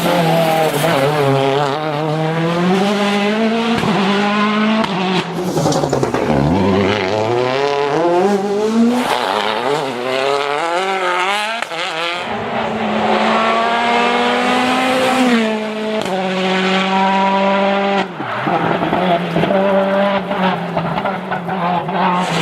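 Citroen DS3 WRC rally car's turbocharged 1.6-litre four-cylinder engine being driven hard: the revs climb and fall again and again through gear changes, with sharp cracks at the shifts. The revs drop low about six seconds in and again near the end as the car slows for corners.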